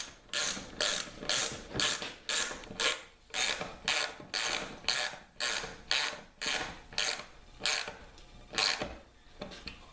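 Socket ratchet wrench driving a hand-forged square-headed lag bolt. The ratchet rasps on each return swing, about two strokes a second, and stops about nine seconds in.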